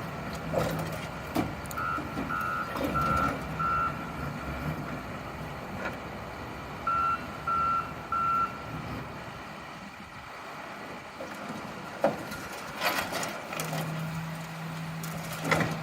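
Backup alarm on a working machine: four short beeps, then three more a few seconds later, over the engine running and some knocks. Near the end comes a low steady tone lasting about two seconds.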